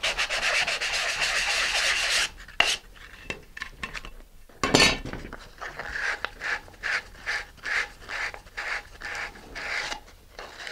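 220-grit sandpaper on a sanding stick rubbed against the cut edge of a plastic nose cone, smoothing the edge: a dense continuous rasping for about two seconds, a sharp knock near the middle, then short back-and-forth strokes about three a second.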